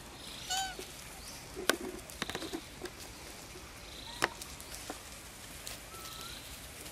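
Outdoor ambience over dry leaf litter: a few sharp clicks and crackles, a short high call about half a second in, and a brief rising chirp near the end.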